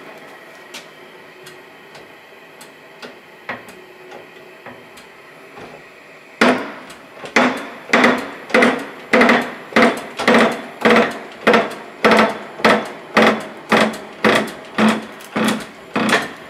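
Oxy-acetylene torch flame hissing steadily on a bearing held in a bearing splitter. From about six seconds in, regular metallic clanks, about one and a half to two a second, from the hand pump of a hydraulic shop press as the heated bearing is pressed off.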